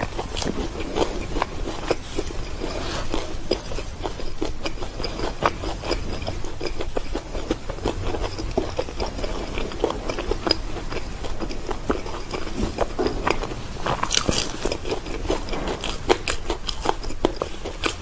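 Close-miked eating: a piece of fried sweet pastry being bitten and chewed, with many small crackles and clicks throughout and a brighter cluster about fourteen seconds in.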